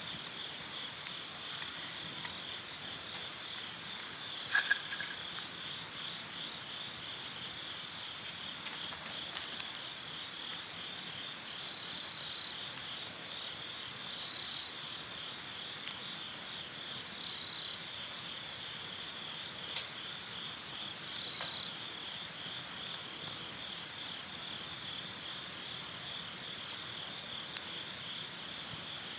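Insects chirping in a steady, fast-pulsing, high trill, with a few scattered clicks and one louder knock about four and a half seconds in.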